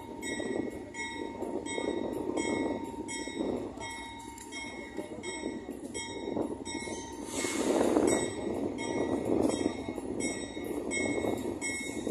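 GE AC44i diesel-electric locomotives running as they come along at low speed, with a steady rumble. Over it a bell-like signal rings about three times a second throughout, and a brief louder rush of noise comes about two thirds of the way in.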